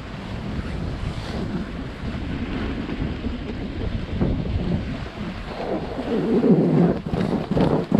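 Wind rushing over the microphone of a camera carried down a snowboard run, with the board sliding and scraping over the snow. It grows louder about six seconds in and turns to rough crackling near the end.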